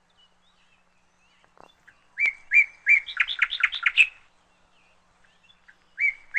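A songbird singing. About two seconds in it gives a phrase of three short notes followed by a quick run of rapid notes, lasting about two seconds, and starts the same phrase again near the end.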